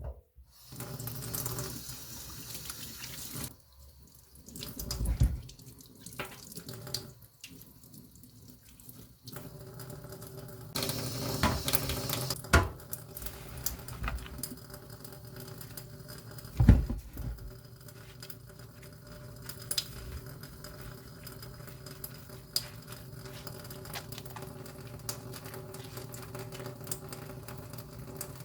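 Running water splashing into a container, with small clicks throughout and a few dull knocks.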